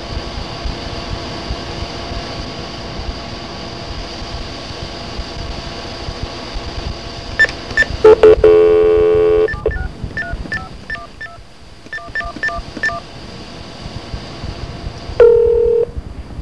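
Telephone line hissing and humming steadily, then a loud steady tone for about a second and a half, followed by a quick run of touch-tone (DTMF) keypad beeps dialing a number, and a short tone near the end.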